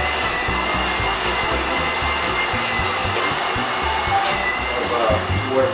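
Handheld electric immersion blender running steadily with a high motor whine as it purees cooked butternut squash soup in a pot; the pitch dips briefly about four seconds in.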